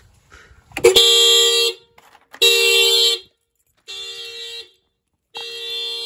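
2015 Honda Accord's horn sounding in its security-alarm pattern, set off by reconnecting the battery: four blasts about one and a half seconds apart, each well under a second long. A sharp click comes just before the first blast, and the last two blasts are quieter than the first two.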